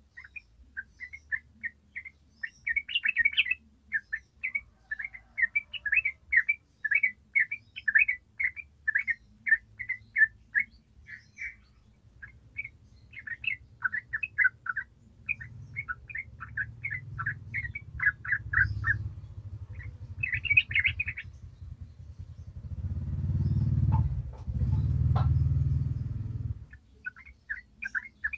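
Yellow-vented bulbul singing a long, rapid run of short chattering notes, with brief pauses. Its song drops out for several seconds near the end while a low rumble swells and fades, and then the song starts again.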